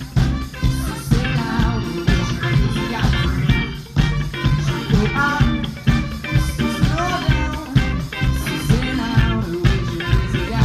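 Live band playing: drum kit, electric bass and guitar with a singer's vocals over a steady beat.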